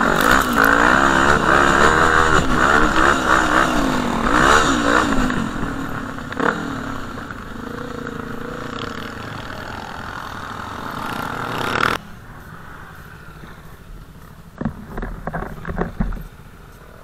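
Quad (ATV) engine revving up and down as it is ridden along a dirt trail, then settling to a steadier, quieter run. About twelve seconds in the sound drops suddenly to a low background, and near the end there are a few sharp knocks.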